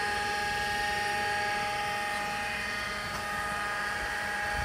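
A motor running steadily: a constant whine of several steady tones over a low rumble.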